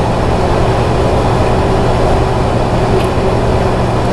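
Steady, loud machine hum and rumble of background equipment, with one light click about three seconds in.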